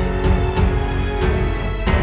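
Loud music with a steady beat, about three beats a second, and heavy bass.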